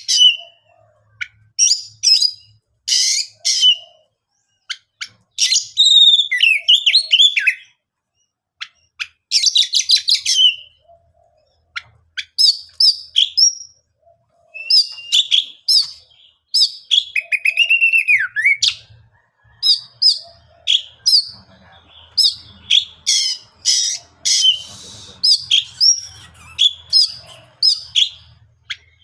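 Oriental magpie-robin (kacer) singing in loud bursts of varied phrases: rapid trills, gliding whistles and harsher notes, with short pauses between. In the second half it repeats short whistles about once a second. This is the persistent, rival-seeking song kept-bird owners call "gacor".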